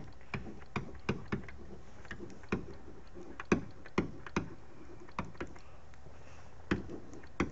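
Irregular sharp clicks, about one to three a second, from a stylus tapping on a writing tablet as letters are handwritten stroke by stroke. A faint steady hum lies underneath.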